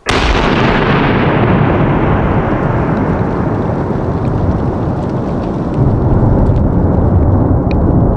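A 300 g flash-powder cipolla firecracker detonates with a single sharp blast, followed by a long rolling rumble as the bang echoes off the surrounding cliffs. The hiss of the echo fades over several seconds while the low rumble carries on, swelling again about six seconds in.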